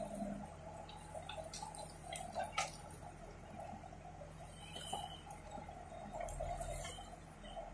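JCB backhoe loader's diesel engine running steadily under hydraulic load while the backhoe bucket works broken concrete rubble, with scattered sharp clinks and knocks of stone and metal, most of them a second or two in.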